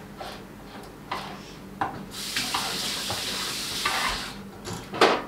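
Push-down spinning whisk stirring and knocking in a steel pot of pudding mix, with a kitchen tap running for about two seconds in the middle and a sharp clink near the end.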